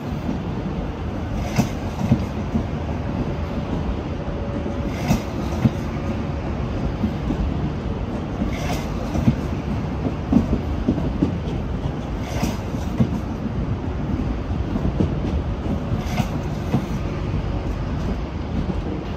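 Rodalies commuter electric train running slowly past close by, with a steady rumble of wheels on rail. Sharp clacks come every three to four seconds as the wheels cross rail joints.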